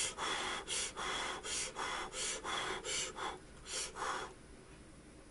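A person blowing on a lifted bite of hot ramyeon noodles to cool them, in about eight short breathy puffs, roughly two a second, stopping about four seconds in.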